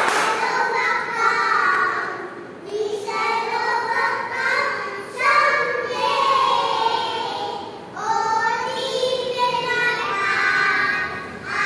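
A group of young children singing together in unison, in phrases of a few seconds with short breaks between.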